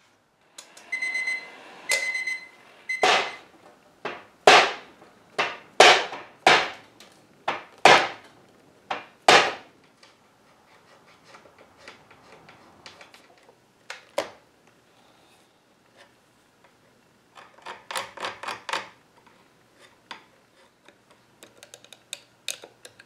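A digital minute timer beeps four times as its buttons are pressed. Then a hammer knocks sharply on the wooden chair frame about half a dozen times, roughly once a second. Later comes a single knock and a quick run of lighter taps.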